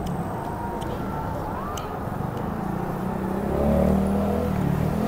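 Steady low rumble of street traffic, with faint distant voices mixed in.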